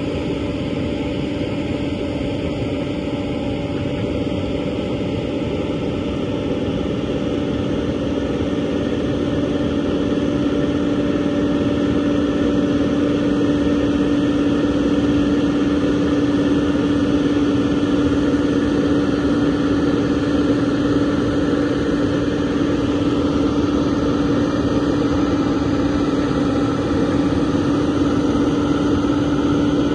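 Hitachi EX200-3 crawler excavator's diesel engine running steadily, with a steady hum over the engine noise, getting gradually louder over the first half.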